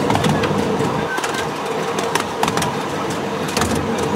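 A 7.25-inch gauge miniature railway train running along its track, heard from a riding wagon: a steady rumble of wheels on rail with many sharp, irregular clicks and ticks from the wheels and rail joints.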